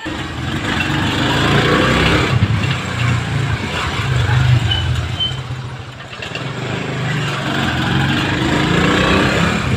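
A motorcycle engine running close by, getting louder about a second in, easing off around six seconds, then rising again.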